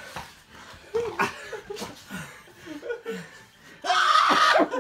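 Soft chuckling and snickering laughter during rough play with dogs. A loud, rough burst comes near the end.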